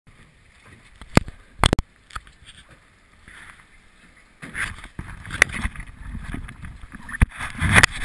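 Sharp knocks and clicks of a camera being handled, several close together in the first two seconds. From about halfway a rough rush of wind and water noise sets in, broken by more knocks.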